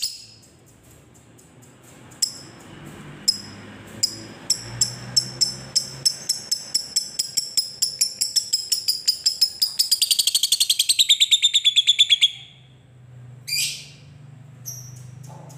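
Fischer's lovebird giving its long chattering trill (ngekek): short sharp high notes that speed up into a very rapid run, sink in pitch near the end and stop abruptly. A single sharp call opens it, and another short call follows soon after the trill stops.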